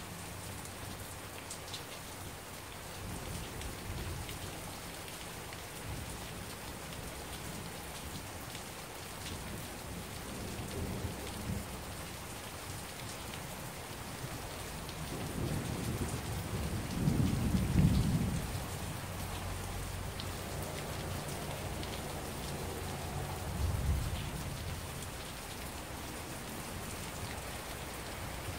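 Heavy rain falling steadily, with a roll of thunder that swells up about halfway through and is loudest a couple of seconds later, then a shorter rumble of thunder near the end.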